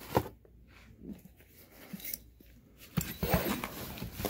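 Cardboard parts boxes and tools being handled and packed into a fabric tool bag. A light knock comes near the start, then scattered small rustles, and about three seconds in a denser stretch of rustling, crinkling and scraping begins.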